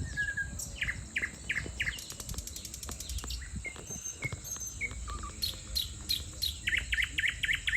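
Wild birds chirping in repeated short calls, with a quick run of rapid chirps near the end, over a steady faint high hiss and a low rumble of background noise.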